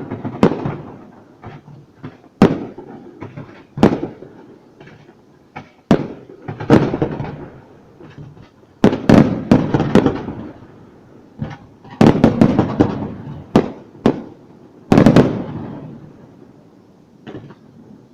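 Fireworks display: aerial shells bursting in loud, irregular bangs, some in rapid clusters of several, each bang trailing off in a rumbling echo.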